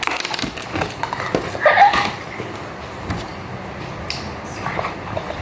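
Eating and food-handling sounds: scattered small clicks, knocks and rustles, with a short voice-like sound about two seconds in.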